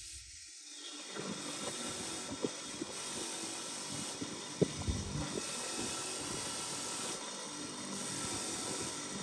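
Steady hiss with a few faint, light clicks and taps from small speedometer parts being handled during repair.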